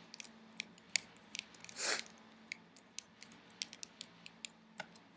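Small, irregular plastic clicks and light crackles as a replacement laptop screen panel is pressed into place at its corners, with a short scrape about two seconds in.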